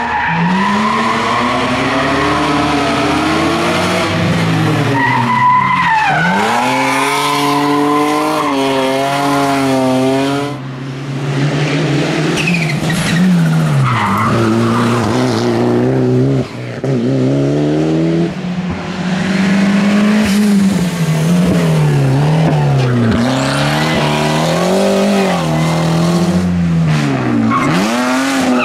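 Rally car's engine revving hard on a hill-climb run. The pitch rises through each gear and drops sharply at the shifts and when lifting for corners, again and again.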